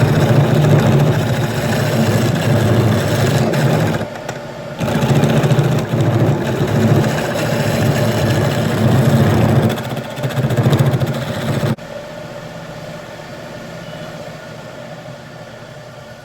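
Homemade wood lathe, driven by a treadmill motor through a wooden pulley, running loudly with a tool cutting the spinning wood; the cut breaks off briefly twice. About twelve seconds in the cutting stops suddenly and the lathe runs on with a quieter hum that slowly fades.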